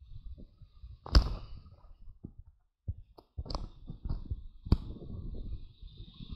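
Surf breaking and washing over the rocks, with wind buffeting the microphone in uneven low rumbles, cut by three sharp knocks.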